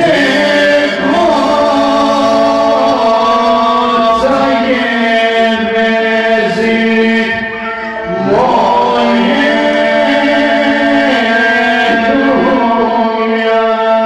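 Two men singing an Albanian song into microphones over an electronic keyboard that holds a steady drone. The phrases are long and ornamented, and a new phrase starts about eight seconds in.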